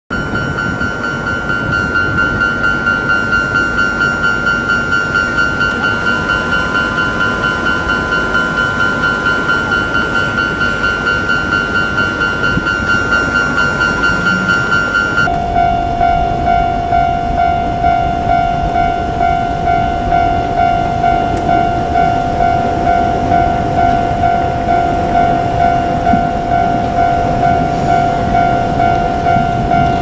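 Japanese railway level-crossing warning bell ringing in a rapid, even, repeating ding, warning that a train is approaching. About halfway through, the sound changes abruptly to a lower-pitched bell.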